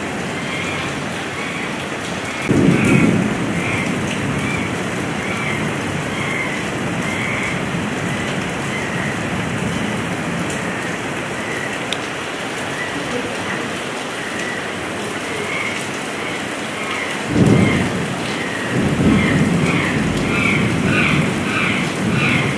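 Heavy rain falling steadily, with low rumbles of thunder about three seconds in and again late on.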